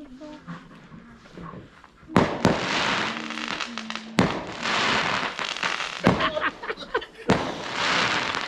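Fireworks going off: a sharp bang about two seconds in, followed by dense crackling, with further bangs and crackle every second or two.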